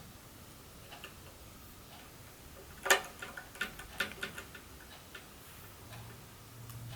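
Light clicks and taps of small tools and parts being handled while an iPhone is taken apart. The loudest click comes about three seconds in, followed by a quick run of smaller ones.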